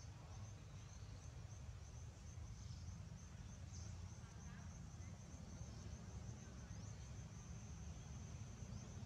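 Faint, steady high-pitched trilling of insects, over a low background rumble.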